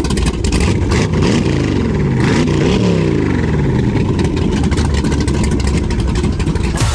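An engine revving, its pitch rising and falling several times; it cuts off suddenly near the end.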